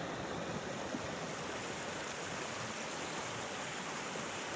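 Small stream's water rushing steadily over a low rocky ledge, a white-water riffle.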